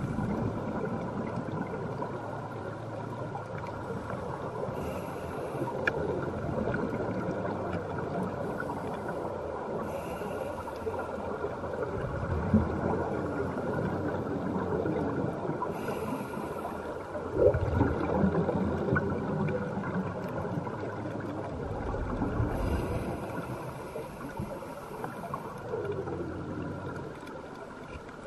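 Underwater sound of scuba divers breathing through their regulators: rumbling bursts of exhaled bubbles about every five seconds, with hissing in between, over a steady underwater wash.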